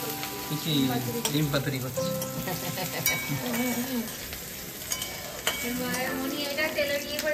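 Food frying and sizzling in a karai on a gas stove while a spoon stirs it, with scattered clicks of the spoon against the metal pan.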